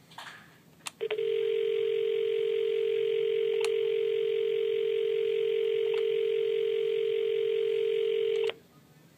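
Dial tone from an Avaya IP desk phone: a key click, then one steady low tone starting about a second in and cutting off abruptly near the end. It sounds while the existing call is on hold, the phone waiting for a new number to dial.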